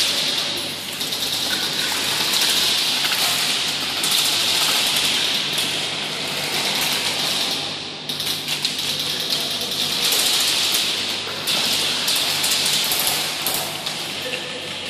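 Airsoft guns firing in rapid bursts, a dense clatter of shots and BBs that swells and eases every second or two, over a low steady hum.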